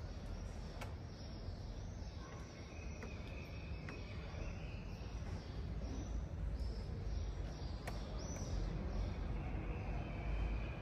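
Quiet street ambience: a low steady rumble with a few faint high chirps and the odd light click.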